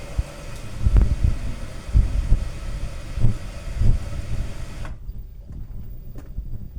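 LG washing machine tumbling a load of wet towels, the drum's turns giving low, uneven thumps about once a second. A steady hiss under the thumps cuts off suddenly about five seconds in, while the thumping goes on.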